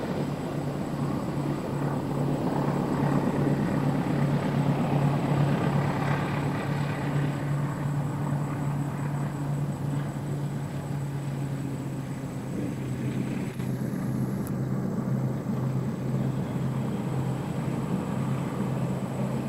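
Distant diesel locomotive hauling a passenger train, its engine giving a steady low drone with a rushing noise over it that swells a few seconds in and then eases.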